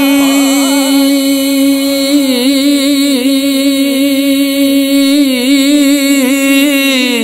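A man's voice singing a naat holds one long note without words, with small wavering turns in pitch in the middle, and lets it go near the end.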